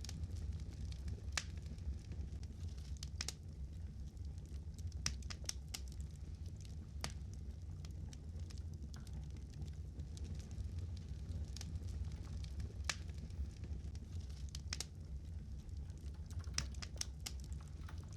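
Wood fire crackling: irregular sharp pops and snaps, several in quick succession near the end, over a steady low hum.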